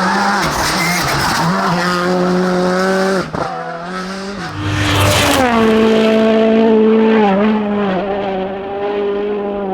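Rally car engine held at high revs with a fairly steady pitch, dipping briefly about three seconds in. A short noisy burst comes about five seconds in, and tyre and skid noise runs under the engine.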